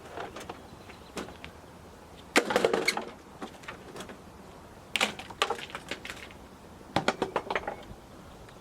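Three short bursts of rapid metallic clicking and rattling, about two seconds apart, from hand tools working on a Mercedes V8's engine-bay parts.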